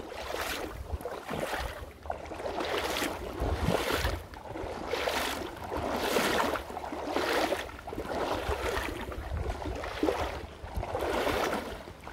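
Water swishing and splashing around the legs of an angler wading through a shallow river, rising and falling about once a second with each stride.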